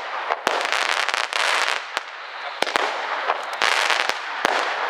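Fireworks going off: two long stretches of dense crackling hiss, punctuated by a string of sharp bangs.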